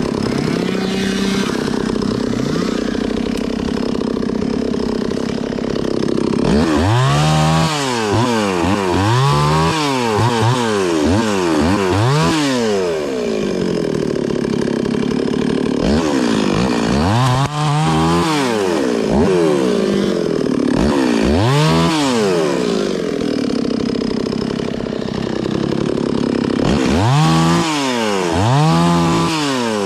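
Single-cylinder two-stroke dirt bike engine, a KTM 300 XC-W TPI, ridden on a steep trail. It is revved up and down in quick throttle bursts, in several clusters, with lower, steadier running in between.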